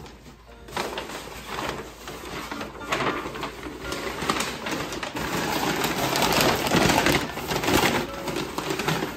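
Stiff brown paper rustling and crinkling as it is pressed and folded into a cardboard box. It starts about a second in and is loudest in the second half.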